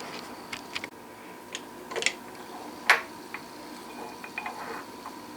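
Scattered light metallic clicks and clinks of tools and the workpiece being handled at a milling machine, the sharpest about three seconds in, over a faint steady hum.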